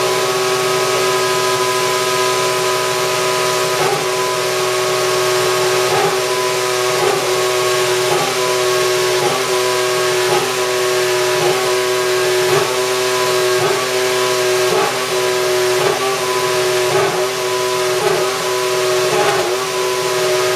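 Mercedes AMG W07 Hybrid Formula 1 car's 1.6-litre turbocharged V6 hybrid power unit running at a steady high idle while stationary, with brief small blips of the throttle about once a second.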